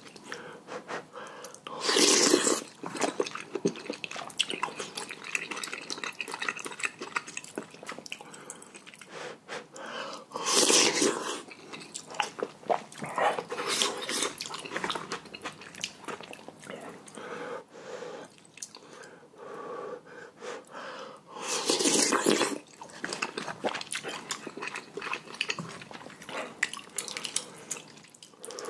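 A person slurping and chewing noodles: three loud slurps, near the start, about a third of the way in and about three quarters through, with wet chewing and mouth clicks between them.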